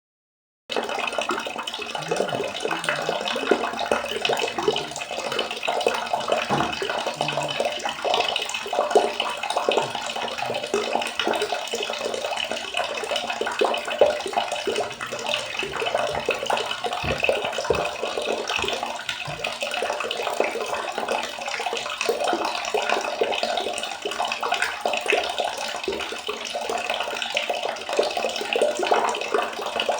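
Steady, dense splashing and trickling of water, like water running into a tub, starting under a second in.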